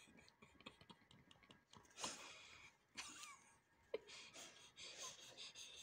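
Near silence: room tone, with a few faint short noises about two, three and four seconds in.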